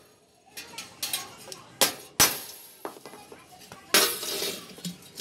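Hammer striking a screwdriver held against a rusted bicycle wheel hub nut: several sharp metal clinks, roughly a second apart, as the seized nut is knocked loose.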